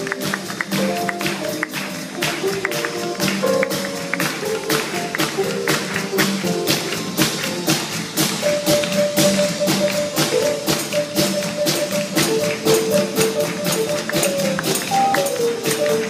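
Live traditional jazz band playing, with horns over a fast, steady beat of drums and percussion. About halfway through, a horn holds one long note.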